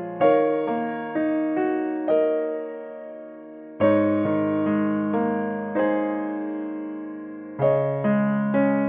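Background music: slow piano, single notes and chords struck and left to ring, with fresh chords about every half second to a second.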